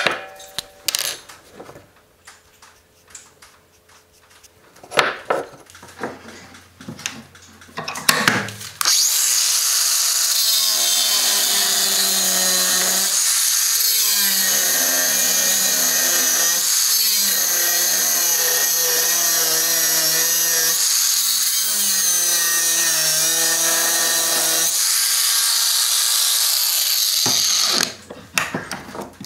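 Angle grinder running against a steel axe head, for about 18 seconds; its motor note drops and recovers several times as the disc is pressed into the steel. Before it starts, a few knocks and clatters of handling on a wooden workbench, and more knocks after it stops.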